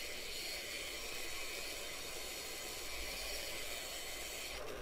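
Bench grinder's wheel running with a high-speed steel tool blank held against it: a steady grinding hiss as the side relief of a single-point cutter is ground.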